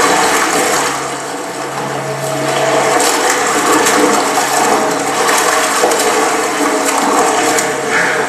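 Rushing, splashing water as a net crammed with fish is hauled at from a boat, a film soundtrack played over a sanctuary's loudspeakers. A low steady hum sits underneath for a stretch about a second in and again near the end.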